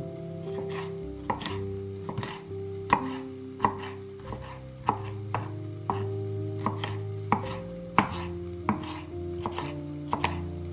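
Chef's knife cutting a red pepper into strips and dice, each stroke a crisp knock of the blade on a wooden cutting board, irregularly about one to two a second. Soft background music with held notes plays underneath.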